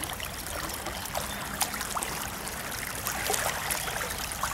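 Shallow river water flowing and trickling, with scattered small splashes and drips.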